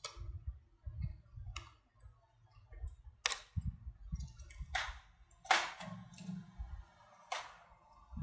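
A metal spoon scraping and clicking against the inside of a plastic yogurt cup as yogurt is scooped out: about six short, sharp scrapes spaced a second or so apart, over faint low bumps from handling.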